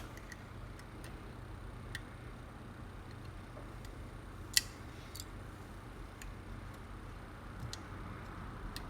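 Scattered light clicks and ticks of small tools being handled at a phone repair bench, with one sharper click about four and a half seconds in, over a steady low hum.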